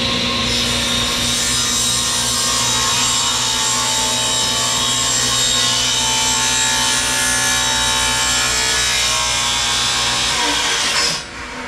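Electric power saw running and cutting through sheet stock in one long, steady cut, stopping about eleven seconds in.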